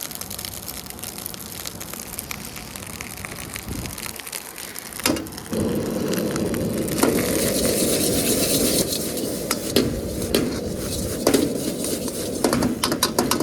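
Rice stir-frying in a hot wok with ketchup just added: a steady sizzle with the clicks and scrapes of the spatula against the wok. It gets much louder about five seconds in.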